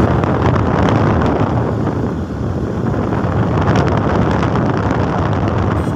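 Wind buffeting a phone's microphone on a moving motor scooter, mixed with the scooter's engine and road noise; a steady, loud rush.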